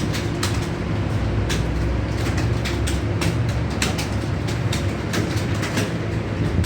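Clatter of many computer keyboards being typed on at once, as a roomful of candidates sits a timed typing test: a dense, irregular run of key clicks over a steady low hum.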